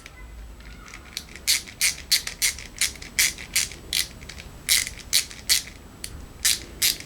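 Ratcheting screwdriver with its flexible bit extension being worked: a run of sharp metal clicks, about three to four a second, starting about a second in, with a short pause near the end.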